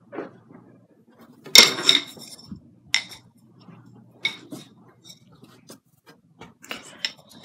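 A series of sharp clicks and clinking knocks of hard objects, the loudest clatter about one and a half seconds in, then single clicks every second or so.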